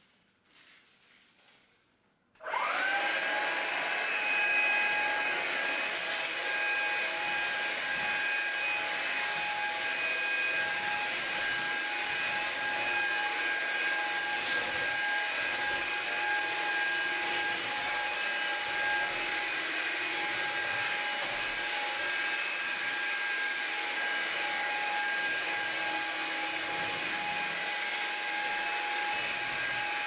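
Hoover Linx BH50010 18-volt cordless stick vacuum switched on about two seconds in. Its motor spins up with a quick rising whine, then runs at a steady high whine while it vacuums scattered white rice off a hardwood floor.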